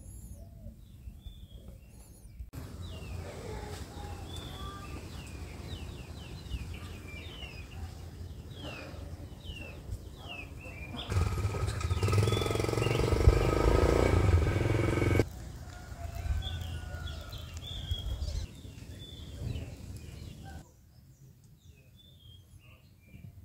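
Small birds chirping repeatedly over a steady low rumble, with a louder stretch of low rumble and steady hum for about four seconds in the middle. The background changes abruptly several times.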